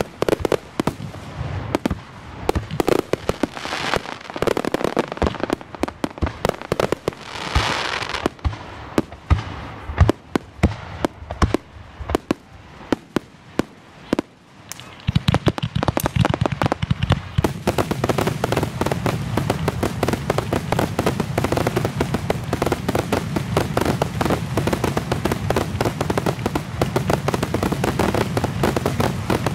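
Aerial fireworks shells bursting, at first as separate bangs a second or so apart, then from about halfway through a dense, continuous barrage of rapid reports: the display's finale.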